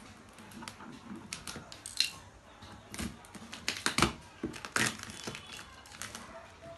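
Cardboard packing box and its plastic wrap being cut with scissors and pulled open: a run of sharp snips, crinkles and scrapes, loudest in the middle.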